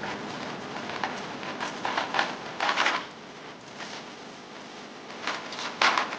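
Irregular clicks and short clatters of tools and parts being handled during engine-bay work, with the biggest clatter about three seconds in and another near the end.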